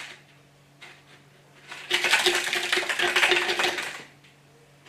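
Plastic water bottle being crumpled and crackled in a hand: a dense burst of crackling that starts about two seconds in and lasts about two seconds.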